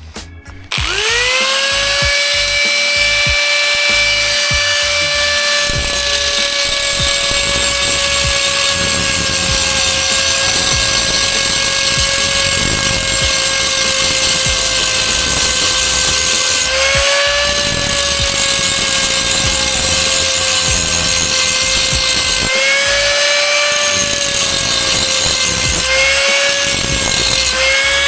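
Electric angle grinder spinning up to speed about a second in and whining steadily as it grinds steel bar stock, its pitch sagging briefly several times near the end as it is pressed into the work and then recovering.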